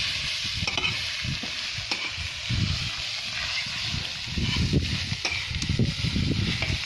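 Pork stir-frying in a hot pan: a steady sizzle while it is stirred, with irregular scraping and a few sharp knocks of the utensil against the pan.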